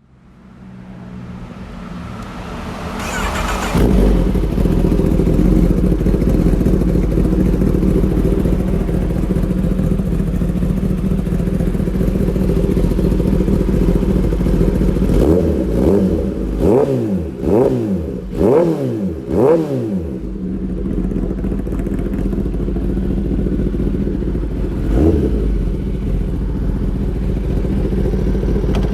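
Kawasaki ZX-10R inline-four through an Arrow Pro-Race competition exhaust, idling, with a throttle blip about three to four seconds in. Four quick revs follow in a row around the middle, then one more later, each rising and falling in pitch.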